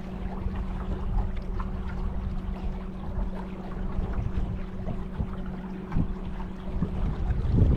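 A steady low motor hum, a single pitch with an octave above it, over wind rumbling on the microphone and small scattered water ticks. The hum stops near the end as a louder gust of wind noise starts.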